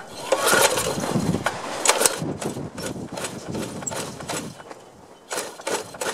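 Choked Briggs & Stratton engine on a McLane reel mower being pulled over with its recoil starter, a string of uneven rattling knocks, without catching. The owner puts the failure to start down to carburetor problems.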